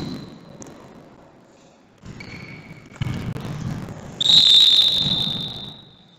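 A referee's whistle blown in one long, shrill blast about four seconds in, with a fluttering trill, fading out near the end. A shorter, fainter whistle tone sounds about two seconds in.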